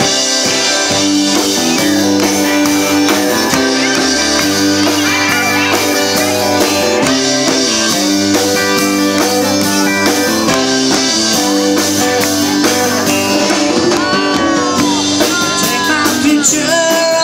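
Live band playing: electric guitars, acoustic guitar and accordion, with the accordion holding long chords. Loud and steady, with bending guitar notes near the end.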